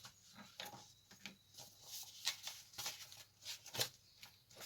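Paper leaflets being handled and leafed through: soft, irregular rustles and small clicks.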